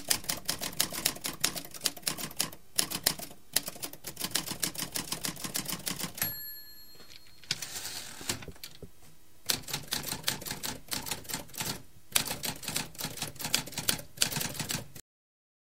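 Typewriter sound effect: rapid, irregular key clacks. About six seconds in they pause for a brief bell ring and a short rasping slide, then resume. The clacks stop about a second before the end.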